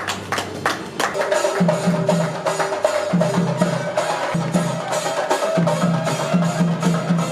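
Percussion-led music: rapid, rhythmic drum strokes under a held melodic note, with pulsing low notes.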